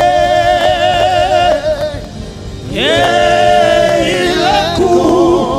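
Gospel worship song sung in Yoruba over steady musical accompaniment: a voice holds long notes with vibrato, drops away about two seconds in, then slides up into another long held note.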